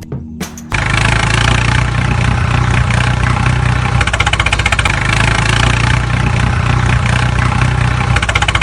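A few sharp clicks, then about a second in an engine cuts in suddenly and runs steadily, with a rapid even pulsing beat and a low hum.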